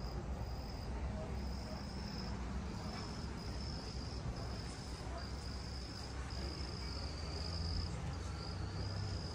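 Insects calling outdoors: a high, thin buzz that comes in repeated pulses of about half a second to a second each, over a steady low rumble.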